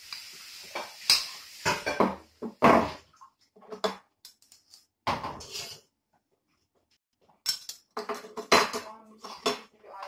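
A metal spoon clinking and scraping against a small ceramic dish as butter is scooped out, in a series of separate short clatters.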